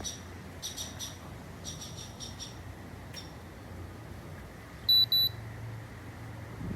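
Portable evaporative air cooler giving two short, high electronic beeps about five seconds in. Before them, faint high chirping ticks come in small clusters.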